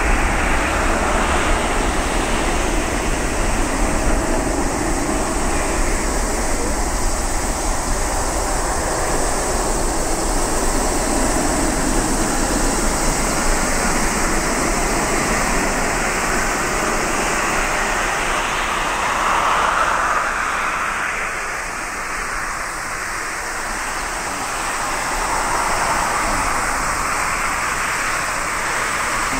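Jet airliner engine noise as the aircraft passes. It is loud at first and slowly fades, with a brief swell about twenty seconds in.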